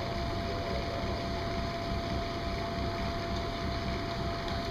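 Electric blower fan of an inflatable finish-line arch running steadily: a low rumble with a faint constant whine.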